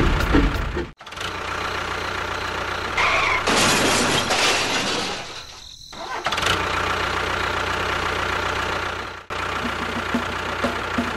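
Steady engine-like running noise, broken off abruptly about a second in and again near the end. A brighter hiss is heard for about two seconds in the middle.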